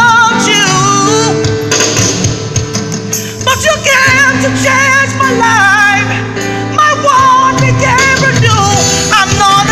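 A man singing a gospel song with long, wavering held notes, over sustained chords from a Yamaha Motif XF7 keyboard.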